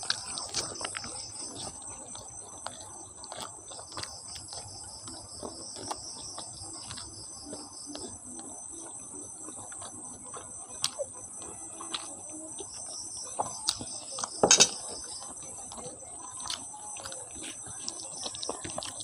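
Close-up eating sounds: wet chewing and smacking, and fingers squishing rice and curry. There is one louder knock about fourteen and a half seconds in, over a steady high chirping of crickets.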